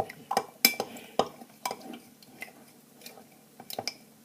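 A spoon stirring peanut butter into milk in a cup, clinking against the side in irregular taps: several in the first two seconds, then a quick cluster near the end.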